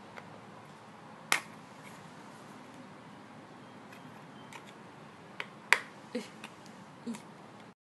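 Sharp plastic clicks from a clear plastic false-eyelash case being worked open: one loud click about a second in, then a cluster of five or so quicker clicks and snaps in the last third.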